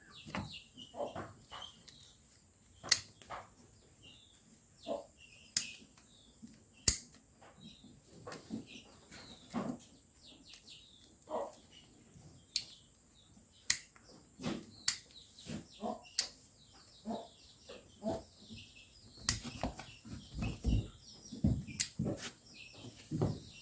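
Hand shears snipping a sheep's hooves during trimming: a string of sharp, irregular clicks about one to two seconds apart.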